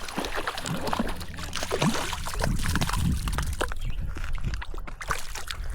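Water sloshing and trickling close by, with many small clicks and handling noises scattered throughout.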